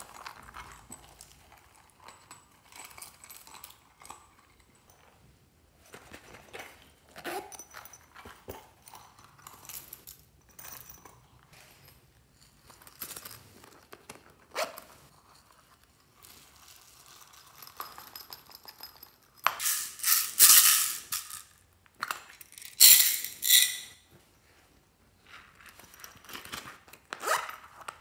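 Hands squeezing and opening squishy toy pouches and tipping foam beads and sprinkles into a glass tray of slime: soft rustling and rattling, with two louder bursts of rattling and crinkling about two-thirds of the way through.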